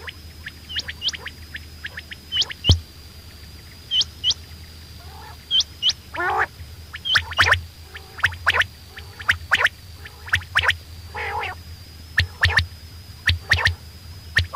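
Quails calling: short high notes that hook upward, mostly in pairs, repeated about every second and a half through the first half, among many sharp clicks and a few lower warbling calls.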